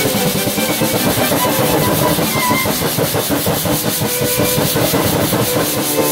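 A security fog machine blasts a jet of fog through a blow torch flame, and the fog catches fire in a loud, steady, fluttering rush of flame like a jet engine firing up, showing that the fog is flammable. The noise cuts off suddenly near the end.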